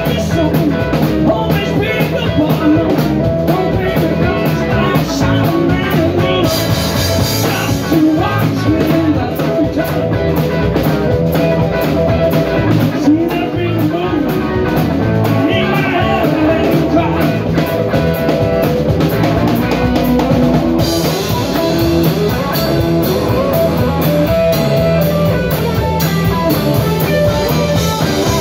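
Live band playing a rock-and-roll song: guitars over a drum kit, at a steady loud level.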